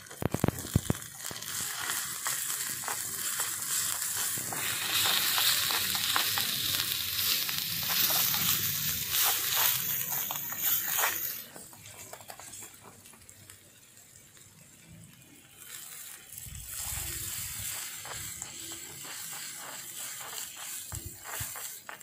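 Oil sizzling in a miniature iron kadai as spiced vegetables and turmeric fry over a small wood fire, stirred with a small spatula. A few sharp knocks sound at the start. The sizzle drops away sharply about halfway through and picks up again a few seconds later.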